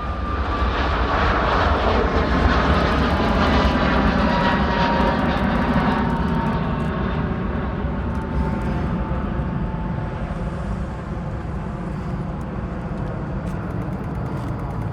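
Jet airliner passing: a deep engine rumble under a high whine that slowly falls in pitch. It is loudest a few seconds in, then fades away.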